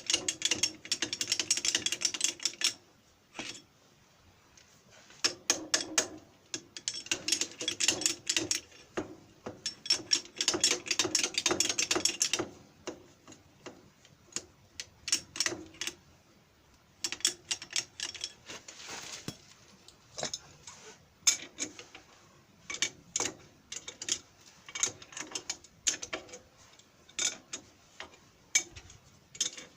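Ratchet wrench clicking in quick runs a few seconds long, then scattered metal clicks and taps, as the bolts on a power tiller's wheel are worked loose.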